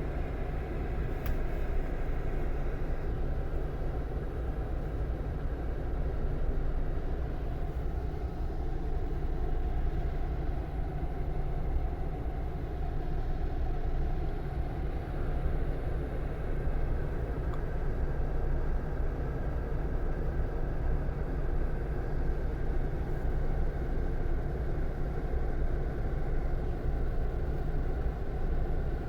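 Scania K400 coach's 13-litre inline-six diesel engine running steadily, a low, even hum that holds one pitch without revving up or down.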